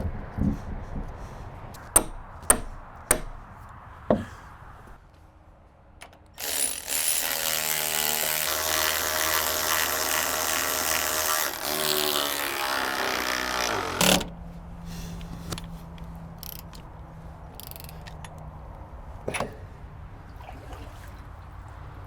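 A few sharp knocks, then a power drill boring a bolt hole through a wooden bridge deck board for about eight seconds, its pitch shifting under load, stopping with a knock. A faint steady hum follows.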